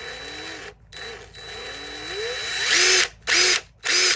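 DeWalt DCF885 cordless impact driver's brushed motor spinning with no load in several trigger pulls. The whine rises and falls in pitch with the trigger, with one long pull that climbs steadily to full speed, then two short quick blips. It is a worn tool whose motor has just been brushed out.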